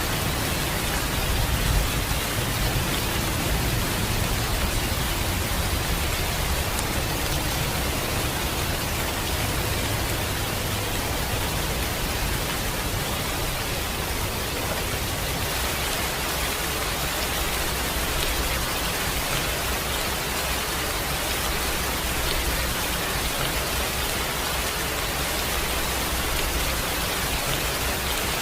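Steady, dense rainfall hissing evenly, with a low rumble beneath it during the first half that fades out about halfway through.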